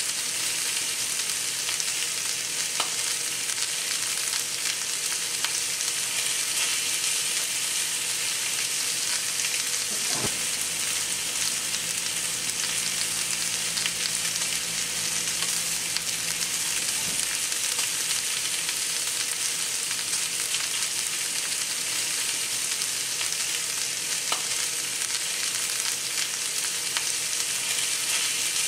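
Two New York strip steaks searing in a hot cast iron skillet: a steady sizzle with a few faint pops. Partway through, the steaks are turned over with metal tongs.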